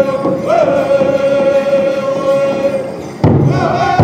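Pow wow drum group singing a dance song, with voices in unison holding a high note after a short drop in pitch. About three seconds in, heavy beats on the big drum come in loudly together with the singers.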